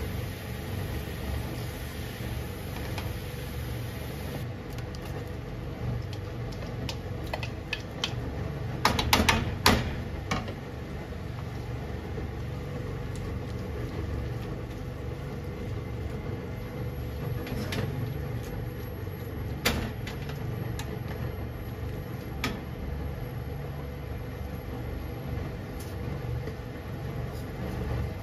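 Steady low hum from the stove, with metal tongs clicking and scraping against a frying pan as spaghetti, cabbage and bacon are tossed. The loudest run of clicks comes about nine to ten seconds in, with a few single clicks later.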